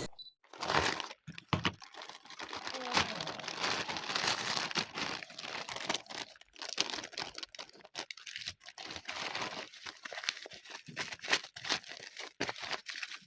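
Packaging being crinkled, rustled and torn open by hand, a string of irregular crackles and rustles.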